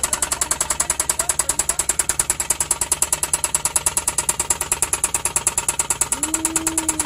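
Suzuki K6A 658 cc three-cylinder engine idling with a loud, regular knock, about nine or ten a second. The mechanic judges the engine subject for overhaul.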